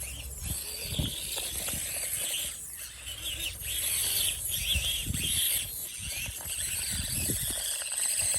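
The small electric motor and drivetrain of an Axial SCX24 micro RC crawler whining, the pitch rising and falling with the throttle as it crawls, with a few low thumps among it.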